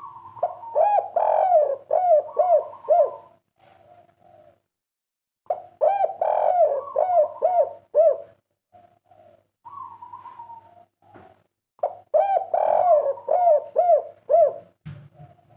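Spotted dove (derkuku, 'kuk 3' song type) cooing: three cooing phrases, each a quick run of rising-and-falling notes, coming about every six seconds.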